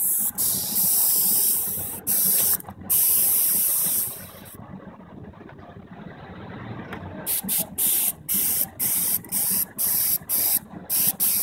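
Compressed-air gravity-feed spray gun hissing as it sprays a leather colour coat onto a worn leather car seat, laid on in thin layers. Long passes for the first four seconds, a pause, then short trigger bursts about twice a second.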